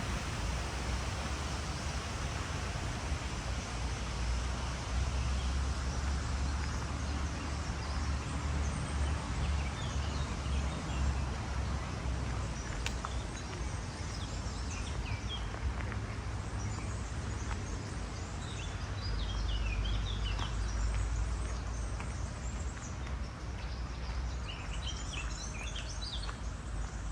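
Small birds chirping in short scattered bursts over a steady outdoor hiss with a low rumble underneath.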